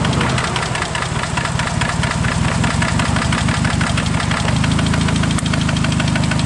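Four-cylinder engine idling with a rapid, even knock: rod knock on cylinder number one, which the mechanic puts down to a rod bearing probably spinning on the connecting rod journal. About half a second in the engine's low running note thins out, then fills back in near the end of the fourth second while the knocking goes on.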